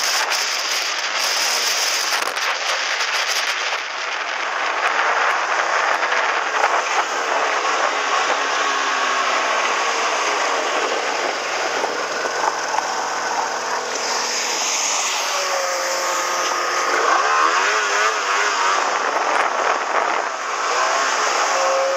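Snowmobile engine running under throttle across snow, nearly buried in a steady rushing noise of wind and snow. The engine pitch rises and falls several times in the second half.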